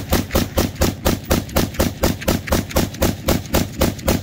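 Firearm fired in a rapid, unbroken string of evenly spaced shots, about four a second.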